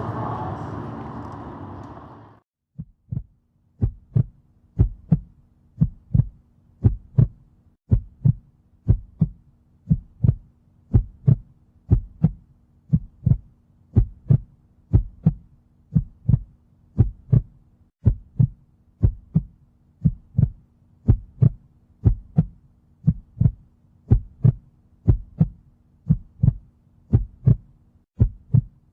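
A heartbeat sound effect: paired low thumps about once a second over a faint steady hum. It begins just after the noisy field sound cuts off abruptly a couple of seconds in.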